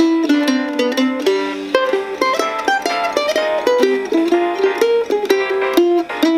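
F-style mandolin picking a fast single-note bebop jazz line, one quickly plucked note after another moving up and down without a break.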